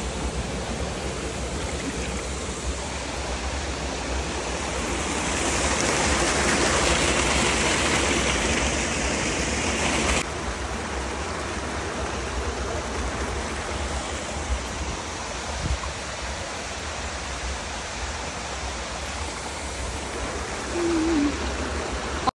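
Mountain stream running over rocks in small cascades: a steady rush of water that swells louder for a few seconds and drops back suddenly about ten seconds in.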